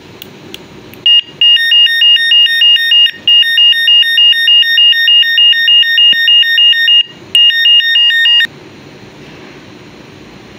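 Rechargeable bicycle light's built-in electronic horn sounding a loud, pulsing beep, about four to five beeps a second, in a few long bursts with short breaks. It is working again after its strap switch was cleaned of a bad contact.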